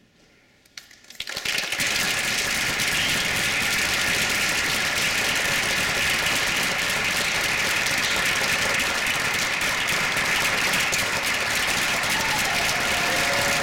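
Audience applause in a theatre, starting about a second in, swelling quickly to a steady, dense clapping that holds through the blackout and the dancers' bow.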